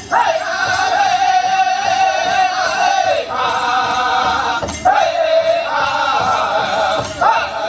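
Powwow drum group singing a men's chicken dance song: male voices in high-pitched unison over a steady drumbeat, the phrases held and then sliding down in pitch.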